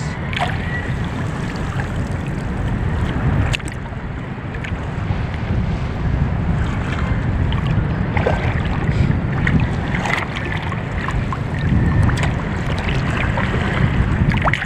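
Wind buffeting the microphone over sea water lapping and sloshing close by, with a few light knocks.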